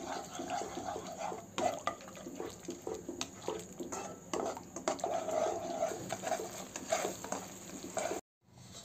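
A nylon spatula stirring and scraping a thin sauce around a nonstick wok: a busy run of wet scrapes, sloshes and small clicks against the pan. The sound cuts out briefly near the end.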